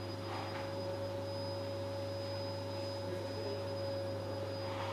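Room tone: a steady low electrical hum with a fainter steady whine above it.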